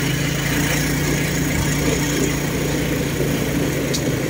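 Motorcycle engine of a saleng (motorcycle-sidecar tricycle) running steadily while riding, with a steady hum and road noise.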